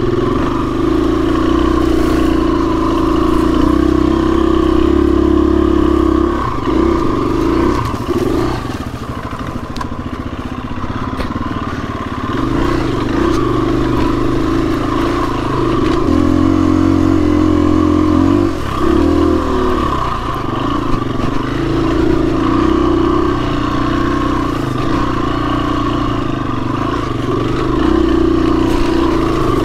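KTM enduro dirt bike's single-cylinder engine running under throttle on a trail ride, its note holding steady for stretches of several seconds and easing off and picking up again several times.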